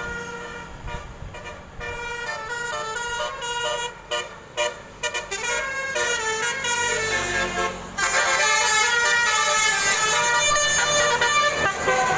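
Indonesian bus telolet horn, a multi-tone musical air horn, playing a tune of stepped notes: short choppy toots at first, then louder held notes from about two-thirds of the way through.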